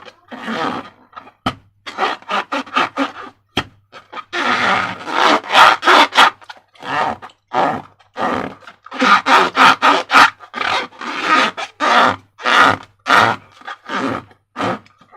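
Slime squelching as it is squeezed and worked out of a rubber balloon: a quick run of short wet squishes, some longer and squeaky, with brief pauses between groups.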